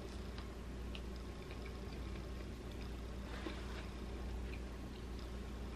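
Faint chewing with a few small mouth clicks over a steady low hum.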